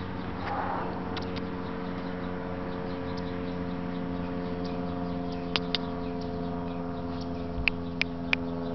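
Steady mechanical hum made of several constant tones, with a few short, sharp clicks in the last few seconds.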